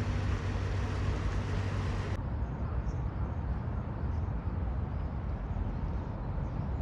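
Steady low vehicle rumble with hiss above it. The higher hiss drops away abruptly a little over two seconds in.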